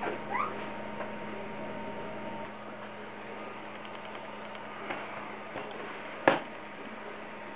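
Steady low electrical hum, with a single sharp knock about six seconds in as a laptop computer is set down on a tabletop.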